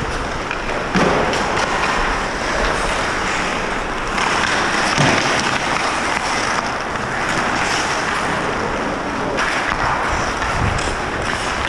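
Ice hockey skate blades scraping and carving across the ice, picked up by a helmet-mounted camera, with a few sharp knocks of sticks and puck.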